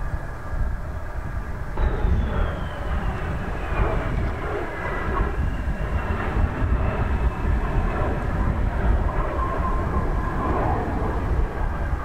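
Mitsubishi F-2B fighter's single F110 turbofan during a landing and rollout: a steady low rumble with a high turbine whine that comes in about two seconds in and falls in pitch as the jet passes.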